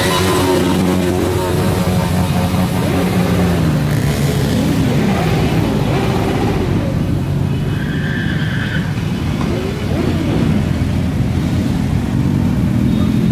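A stream of motorcycles passing close by one after another, their engines running and rising and falling in pitch as each goes past.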